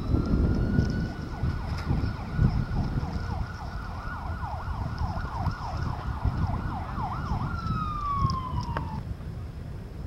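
A siren-like high tone, held steady for a few seconds, then warbling quickly up and down, then gliding down and cutting off near the end, over low wind rumble.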